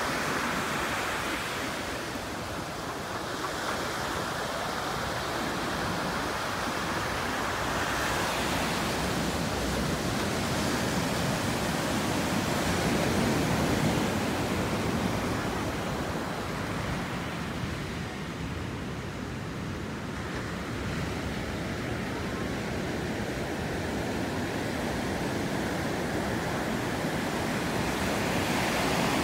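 Ocean surf breaking and washing up on a sandy beach: a steady rushing that slowly swells and ebbs over several seconds.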